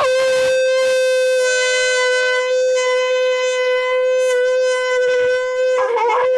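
A large conch shell (shankh) blown in one long note, starting abruptly and held at a steady pitch with a bright stack of overtones. The note wavers briefly near the end, then steadies again.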